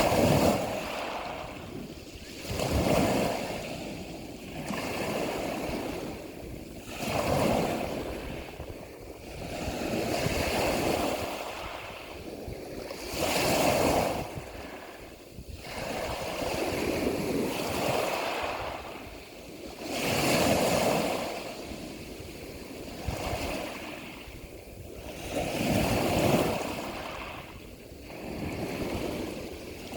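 Ocean waves surging and breaking, rising and falling in a steady rhythm about every three to four seconds.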